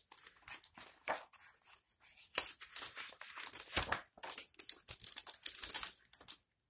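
A picture book's paper page rustling and crinkling as it is handled and turned, with a few sharper snaps of paper in the middle.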